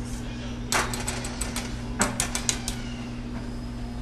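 Wire whisk clicking against a metal pot while stirring thick alfredo sauce: two quick runs of sharp clicks, about a second in and again about two seconds in, over a low steady hum.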